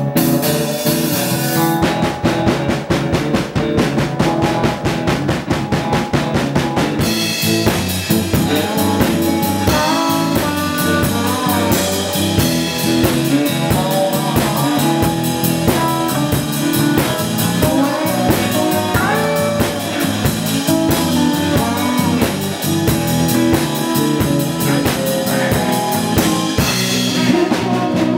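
Live blues band playing: electric guitar over a drum kit keeping a steady beat. The band gets fuller about seven seconds in.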